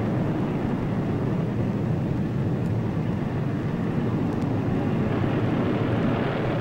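Steady aircraft engine noise on an airfield: a low, even rush with no distinct beats or events.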